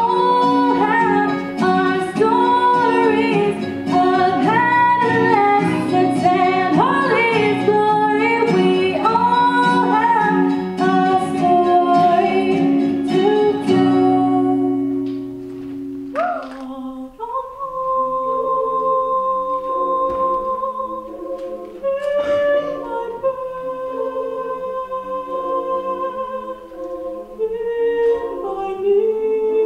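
A girl singing a solo into a microphone over instrumental accompaniment. About sixteen seconds in it cuts to a different piece by a girls' choir, with long held notes over a stepping lower part.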